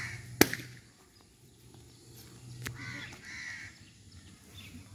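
A single sharp knock about half a second in, with a fainter click a couple of seconds later. Short bird calls sound in the background.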